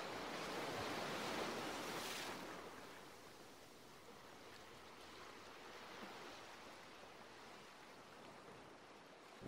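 Waves washing on a shore: a soft, even rush that swells over the first two seconds or so and then fades low.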